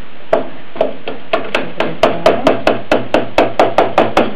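Knife chopping down through a baked cottage-cheese casserole and knocking on the bottom of a stainless steel pan: a quick run of evenly spaced knocks, each with a short metallic ring, speeding up to about five a second.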